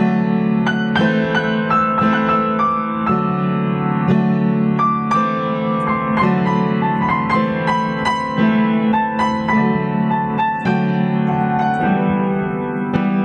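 Piano music: sustained chords with a melody above, notes struck anew about every second.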